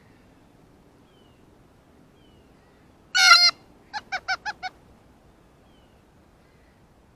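Blue jay calling: one loud call lasting under half a second about three seconds in, followed half a second later by a quick series of five short notes.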